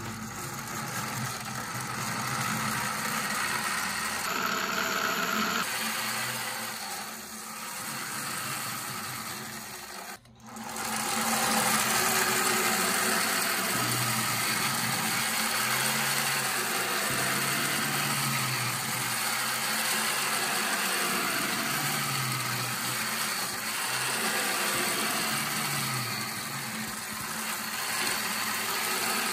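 Hand-cranked 3D-printed plastic gearbox with a 512:1 ratio whirring loudly as its gear train spins at high speed. The noise cuts out briefly about ten seconds in, then resumes steadily.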